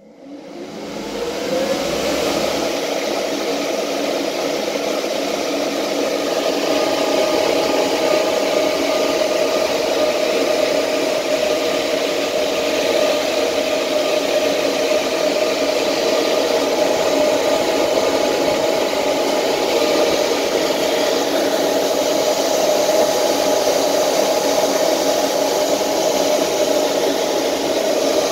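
Three high-speed 200 CFM cooling fans on an inverter switch on and climb to full speed within about two seconds. They then run very loud and steady: a rush of air with a steady whine in it.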